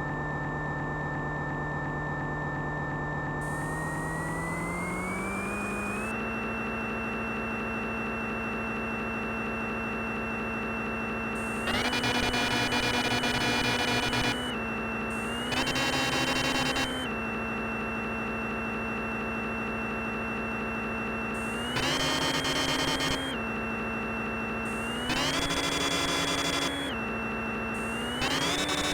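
Simulated CNC lathe sound from the SSCNC simulator: a steady spindle motor hum with a high whine that rises in pitch about four seconds in. Five louder stretches of machining noise follow, each one to three seconds long.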